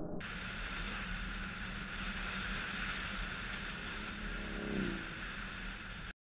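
Strong wind rush on a GoPro riding on a Triumph Bonneville T100, with the bike's parallel-twin engine droning steadily underneath. About four and a half seconds in an engine note falls briefly in pitch, and the sound cuts off suddenly about six seconds in.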